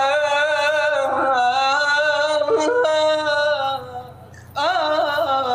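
A man singing long, held, ornamented notes with a wavering vibrato in a mawwal style. The voice drops away briefly about four seconds in, then takes up another sustained note.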